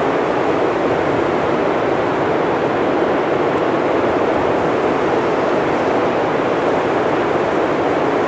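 Heavy blizzard wind blowing as a steady, loud rushing noise with no gusts or breaks.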